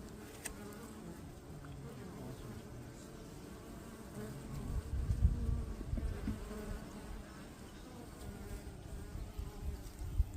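Honeybees buzzing steadily around an opened hive, with a louder low rumble for a couple of seconds about halfway through.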